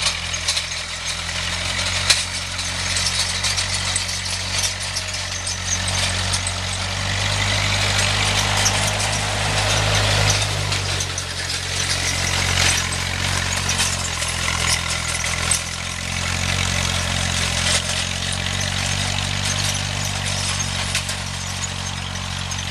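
Ferguson TE20 tractor engine running steadily while it pulls a hay tedder across the field, growing louder in the middle and easing off again.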